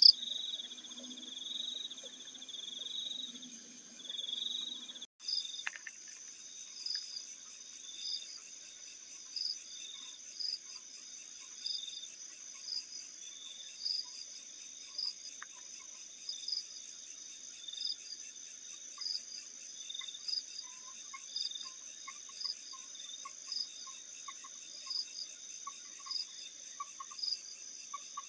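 Night insects, crickets, trilling steadily in high continuous tones, with a louder chirp repeating a little more than once a second. The sound cuts out for an instant about five seconds in, then the chirping carries on.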